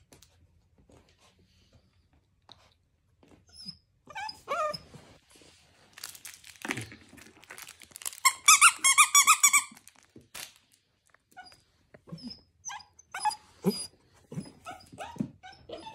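A squeaky plush dog toy squeaked by an English bull terrier puppy biting it: a few short squeaks, then a rapid run of high squeaks lasting about a second and a half near the middle, with knocks and scuffles of the puppy playing on a wooden floor.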